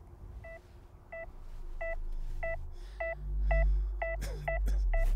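Patient's cardiac monitor beeping with each heartbeat, a short electronic beep about twice a second. A low rumble comes in under it about three seconds in.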